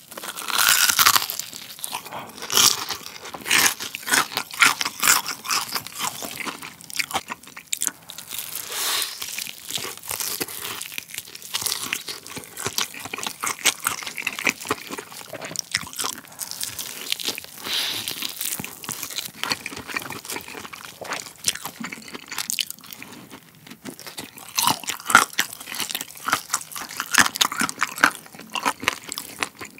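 Crunching bites and chewing of crispy fried chicken with a garlic-breadcrumb coating: a dense crackle of crisp crust breaking between the teeth, loudest about a second in and again near the end.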